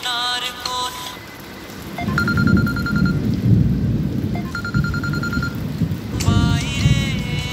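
Low rolling rumble of thunder starting about two seconds in and running for several seconds, with two short bursts of a rapid high ringing over it. A song with singing fades out just after the start and comes back near the end.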